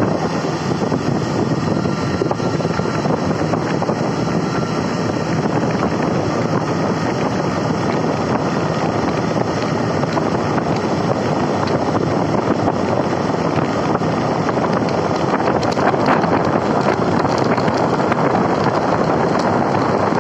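Air blower running, its air stream rushing steadily out of the flanged duct outlet at about 11 to 12 metres per second and buffeting the microphone with wind noise.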